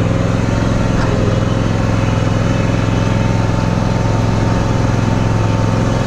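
John Deere X300R lawn tractor engine running at a steady speed.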